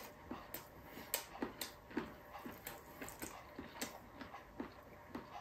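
A person chewing a mouthful of beef stew and rice with wet, smacking mouth clicks, about three a second.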